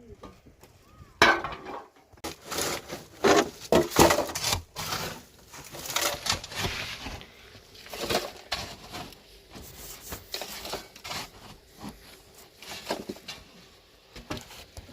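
Irregular knocking, clattering and scraping of hard objects being handled, loudest in the first few seconds and lighter after.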